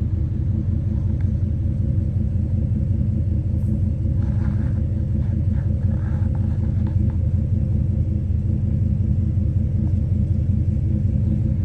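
Chevy Tahoe's V8 engine idling with a steady low rumble, running to warm the cab.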